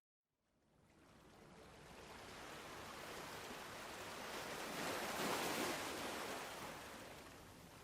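Ocean surf: after a moment of silence at the start, a wave rushes in, peaks about five seconds in, and washes back out.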